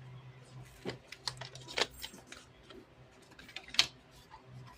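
Irregular light clicks and taps of small hard objects being handled, the sharpest about four seconds in, over a low steady hum.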